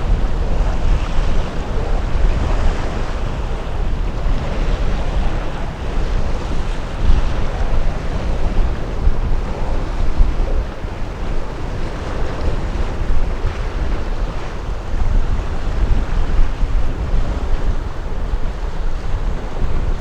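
Wind buffeting the microphone: a gusty, rumbling rush of noise that swells and dips irregularly.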